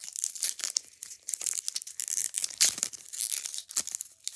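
Foil wrapper of a Match Attax trading card pack crinkling and crackling in the hands as it is worked open, in irregular bursts with a louder crackle a little past halfway.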